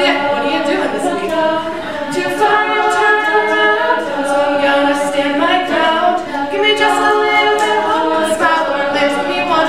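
Girls' a cappella group singing: a lead voice over backing voices that hold and move through chords.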